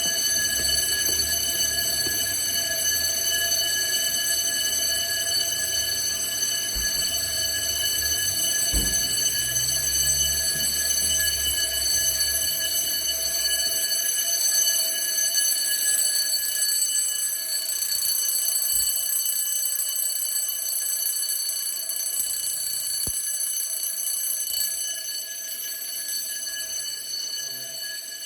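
Fire alarm bells ringing continuously, one steady unbroken ring that eases off a little near the end. The alarm was set off by a burst sprinkler pipe.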